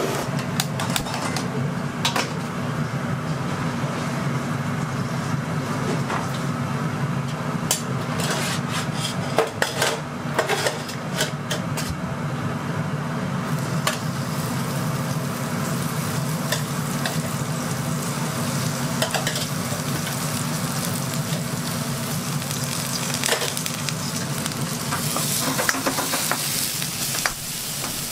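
Scissors snipping through king crab shell with sharp clicks in the first half, then chopped green onion sizzling in oil in a wok and being stirred with a spatula, the sizzle growing louder near the end. A steady low hum runs underneath.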